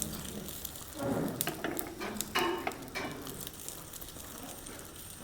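Eggs frying in hot oil, sizzling and crackling, with a few sharp clicks among it.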